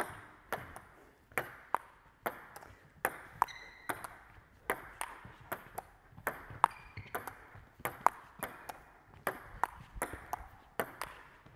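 Table tennis rally: the plastic ball clicks alternately off the JOOLA tabletop and the rubber-faced bats, about two sharp clicks a second in a steady back-and-forth, each ringing briefly in the hall.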